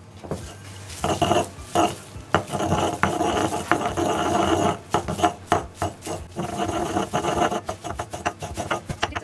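Wooden pestle grinding soft hanpen fish cake against the ridged earthenware inside of a suribachi mortar: quick, uneven scraping strokes, starting about a second in.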